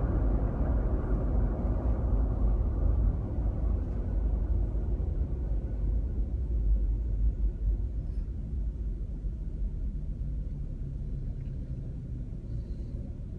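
Car driving on the road: a steady low rumble of engine and tyres that gradually gets quieter through the second half.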